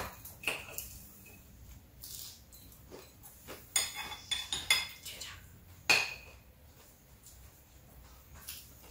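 Metal fork clinking and scraping against a plate while cutting and picking up pieces of fish, in scattered sharp clinks, with a quick run of them about four seconds in and a single loud one near six seconds.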